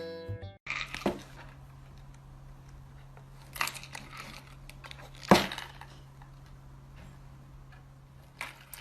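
A few light knocks and crinkly clicks in a small room, the loudest about five seconds in, over a steady low hum.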